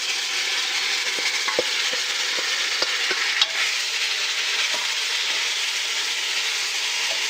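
Chicken gizzards frying in hot oil with onions and spices: a steady sizzle, with scattered light clicks of the pot being stirred.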